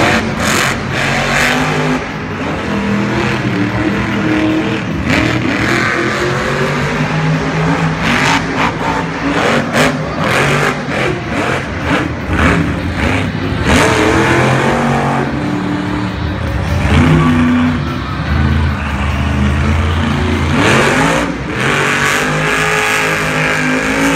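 Grave Digger monster truck's supercharged V8 engine revving hard, over and over. The pitch climbs and drops as the throttle is stabbed and released, with a long rising rev near the end.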